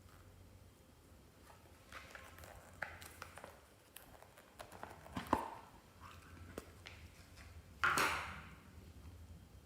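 Clear slime being worked by hand, with scattered soft clicks and squelches. There is a sharper click about five seconds in and a louder, longer squelch near eight seconds.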